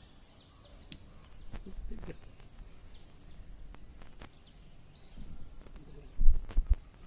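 Quiet outdoor ambience with faint bird chirps and scattered light clicks, and a few low thumps about six seconds in.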